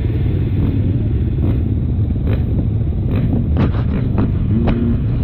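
Motocross bike engine heard from a helmet camera, revving up and changing gear several times over a heavy low rumble of wind buffeting on the microphone, with several sharp knocks.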